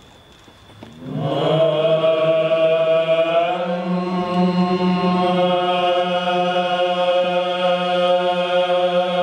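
Male Byzantine choir chanting in plagal first mode. About a second in, the voices come in together over a low held drone (the ison) and sustain a long, slow melodic line.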